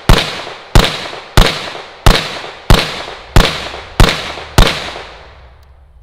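Eight gunshots from a SIG Sauer P320 in a Flux Raider PDW chassis, fired at an even pace about two-thirds of a second apart in a slow-fire drill. Each shot has a short echo trailing off, and the last one, a little under five seconds in, fades away.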